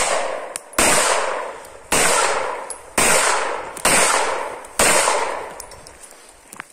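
Sarsılmaz SAR9 9 mm pistol fired five times at a steady pace of about one shot a second, each report trailing off in a long echo before the next.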